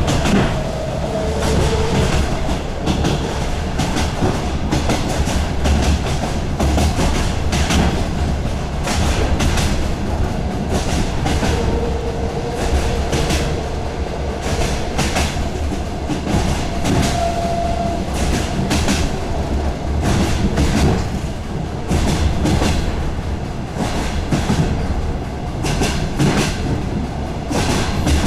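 DR1A diesel multiple-unit train running along the line: a steady low rumble with the wheels clicking over the rail joints all the way through.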